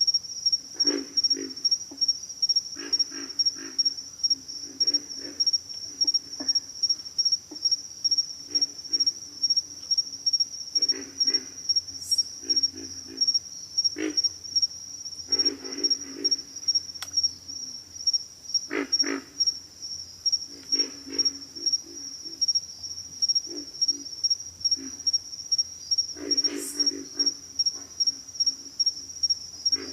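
Pig frogs calling in short bouts of rapid, low grunts, a new bout every second or two, over a steady high-pitched pulsing insect trill.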